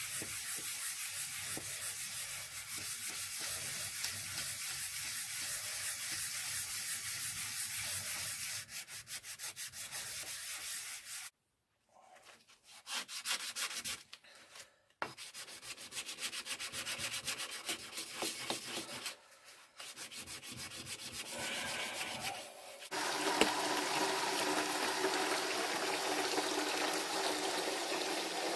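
Hand sanding a metal drill press vise part, steady back-and-forth rubbing strokes that pause briefly twice. About 23 s in, this gives way to tap water running steadily into a plastic bucket.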